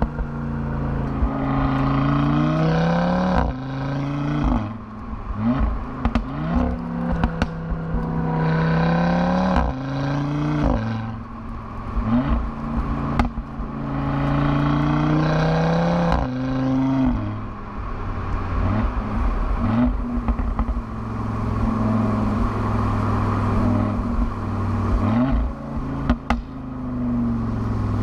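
ABT-tuned Audi RS3's turbocharged 2.5-litre five-cylinder engine under hard acceleration, revs climbing and dropping sharply again and again with each quick upshift. It then runs steadier at high speed, and near the end the revs fall away. Sharp clicks and knocks sound now and then.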